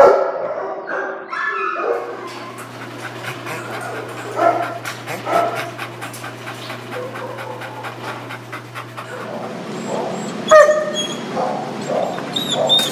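Shelter dogs in kennels barking, yelping and whining in short scattered calls, with one loud bark about ten seconds in. Under them are many sharp clicks and a steady low hum through the first half.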